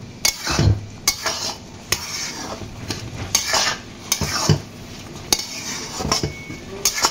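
Metal spatula scraping and stirring thick semolina-and-vermicelli upma in a kadai, in irregular strokes roughly two a second, with a faint sizzle beneath; the semolina is swelling and thickening as it takes up the water.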